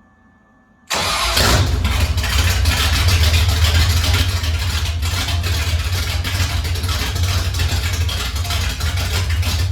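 Ford 390 FE big-block V8 engine running loud and steady with a strong low rumble; it comes in suddenly about a second in.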